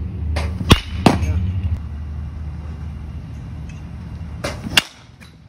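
A baseball bat cracking against pitched balls in batting practice: a sharp crack about a second in with a second knock just after it, and another crack near the end, over a steady low rumble.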